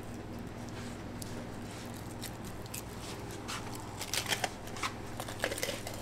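Long tuna knife cutting into a bluefin tuna's head section, against a low steady hum. From about three and a half seconds in comes a quick run of crisp crackling and scraping as the blade works through the fish.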